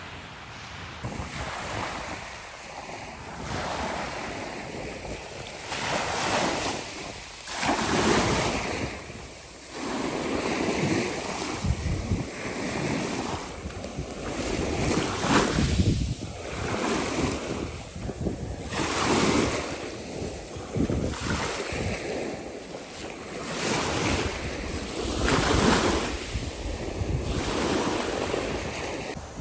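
Sea waves breaking and washing up on a beach, a surge every two to three seconds, with some wind on the microphone.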